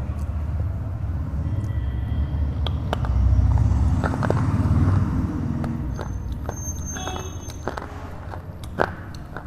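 A low rumble like a motor vehicle running close by swells a few seconds in and then fades. Scattered small clicks sound over it, with one sharper snap near the end.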